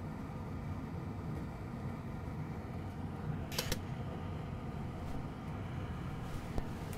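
Steady low fan-like hum of room noise, with a short click about three and a half seconds in and a fainter one near the end.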